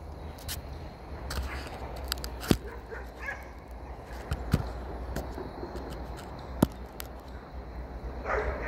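Dogs fighting some way off, with a few short barks and yelps, the strongest near the end. Several sharp knocks cut through.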